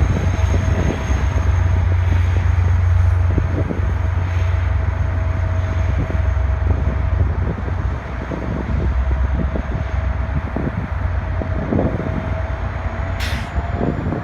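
VIA Rail passenger train rolling past on the rails: a heavy low rumble with rapid irregular wheel clicks and a steady thin whine. It eases off in the second half as the train moves away.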